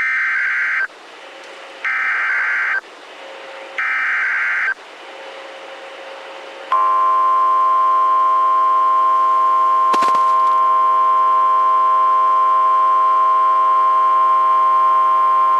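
Emergency Alert System SAME header: three short bursts of warbling digital data tones, about a second apart, followed after a short gap by the NOAA Weather Radio 1050 Hz warning alarm, one long steady tone held for about nine seconds, with a single brief click partway through.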